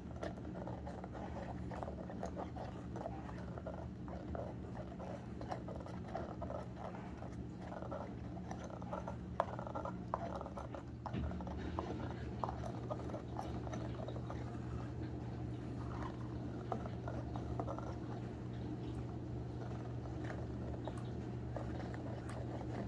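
A Pomchi (Pomeranian–Chihuahua mix) chewing and gnawing on a rubber gorilla chew toy: a run of irregular short gnawing clicks, over a steady low hum.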